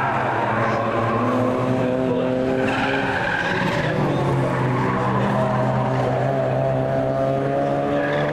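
Several Mazda MX-5 race cars' four-cylinder engines running hard together through a corner, their pitches rising and falling against one another, with tyres squealing as the cars slide, most clearly about three seconds in.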